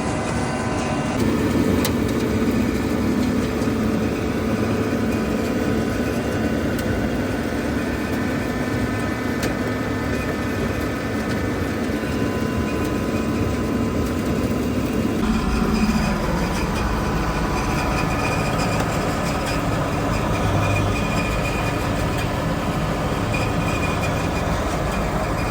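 Heavy engine running steadily with a Haybuster tub grinder as it warms up. Its note shifts about a second in, and a deeper low rumble comes in about fifteen seconds in.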